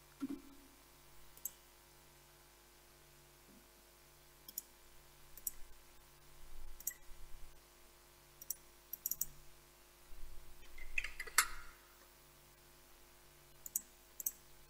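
Computer mouse clicking, faint and scattered, some clicks coming in quick pairs, over a low steady electrical hum.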